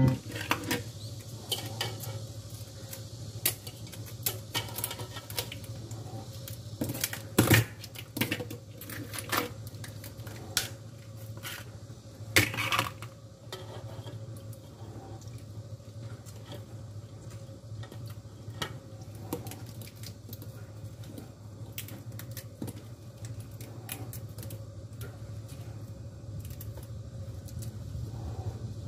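Raw flower crabs being handled and pulled apart in a stainless-steel sink: scattered clicks, cracks and clatter of shell, ice and kitchen scissors against the steel, with a few louder knocks about seven and twelve seconds in. A steady low hum runs underneath.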